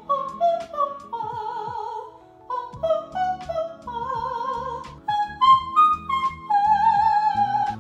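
A woman singing vocal warm-up exercises in a trained, operatic-sounding voice: short runs of notes stepping up and down, with held notes sung in vibrato.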